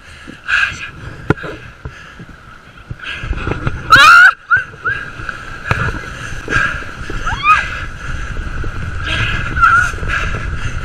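Riders on towed inflatable tubes shrieking over the rush of water and wind as they bounce across a motorboat's wake: one loud, high cry about four seconds in, a shorter rising cry a few seconds later.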